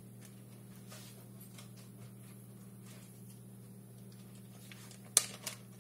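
Quiet room with a steady low hum, a few faint light ticks, and one sharp click about five seconds in, followed by a softer one.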